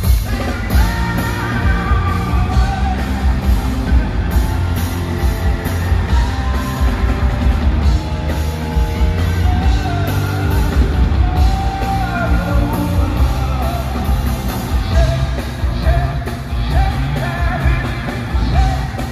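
Rock band playing live and loud: a male lead singer's voice over driving drums, bass and electric guitar.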